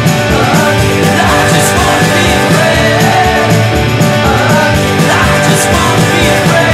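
Rock band recording playing: electric guitars, bass and drums keeping a steady beat, with a voice singing over them.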